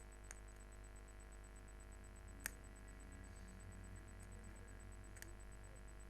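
Near silence: a low steady hum with a few faint sharp clicks, the loudest about two and a half seconds in.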